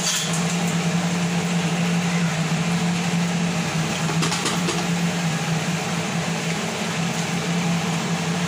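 Batter-coated cauliflower balls deep-frying in hot oil in a steel kadhai, the oil sizzling and bubbling steadily, with a steady low hum running under it.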